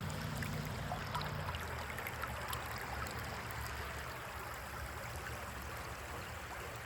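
Creek water running and trickling over rocks, a steady rush with small scattered gurgles.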